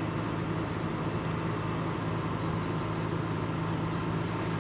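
Car running at slow driving speed, heard from inside the cabin: a steady low engine and road hum.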